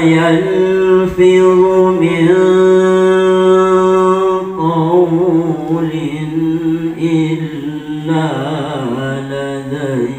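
Male qari's melodic Quran recitation (tilawah) in the Egyptian style, on a long breath: one long held note that breaks about four and a half seconds in into wavering, ornamented runs.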